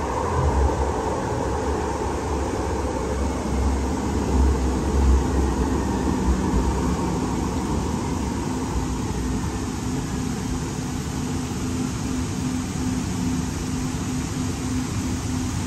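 Cabin noise of a Siemens LRV4 light rail car running through a subway tunnel: steady low rumble of the wheels and track, with a motor whine that sinks and fades over the first few seconds, leaving a steady low hum.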